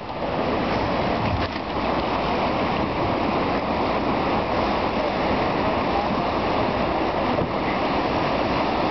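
Steady rushing noise of moving river water, an even wash with no break or change.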